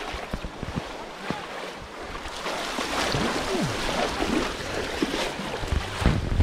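Shallow pond water sloshing and splashing as people wade and reach into a hole in the muddy bank, with a few louder thumps near the end.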